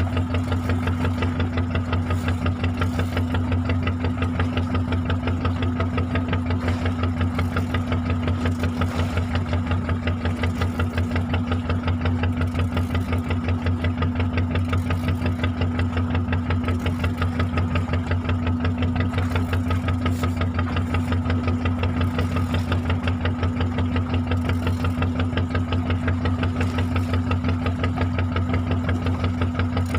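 A fishing boat's engine running steadily with a rapid, even chugging beat.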